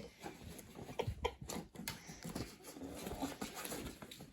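Cats moving about on a person's lap and legs: soft, scattered taps, scrabbling and rustling, with claws catching on fabric.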